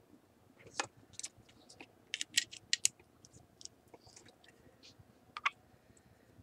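Light clicks and taps of plastic parts being handled on an opened multimeter, scattered through, with a quick run of clicks about two seconds in and a single sharper click past five seconds.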